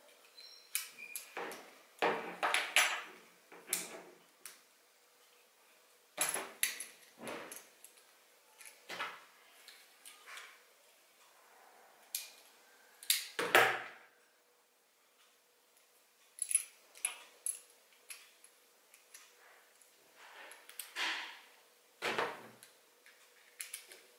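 Handling noise of a kydex sheath and small hardware worked by hand: irregular clicks, taps and short scrapes of plastic and small parts, with the loudest knock about halfway through. A faint steady hum runs underneath.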